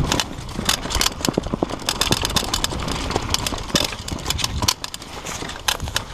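Mountain bike descending a rough dirt forest trail: tyres running over dirt, roots and rocks under a steady low rumble, with frequent sharp knocks and rattles from the bike as it hits bumps.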